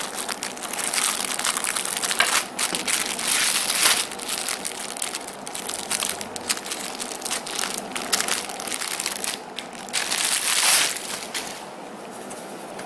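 Thin clear plastic bag crinkling and crackling with many small snaps as it is cut open with scissors and pulled apart; the crinkling dies down about a second before the end.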